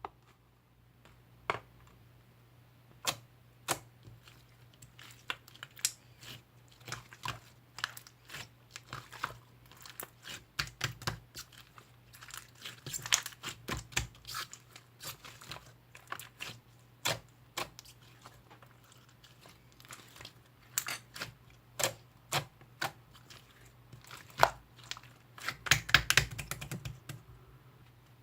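Slime being pressed, stretched and squished by hand, giving irregular sharp clicks and pops from trapped air, with quicker runs about halfway through and near the end.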